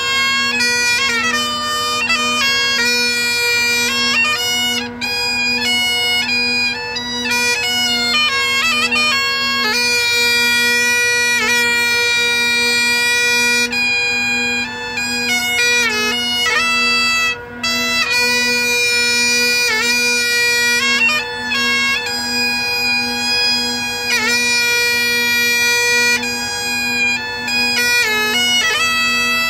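Great Highland bagpipe played solo: the drones sound one steady tone throughout while the chanter carries a melody of held notes, broken by quick grace-note flourishes.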